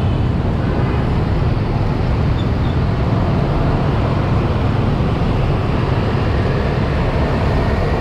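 Steady city traffic noise of motorbikes and cars, heard from a moving motorbike in the traffic stream, with a heavy low rumble throughout.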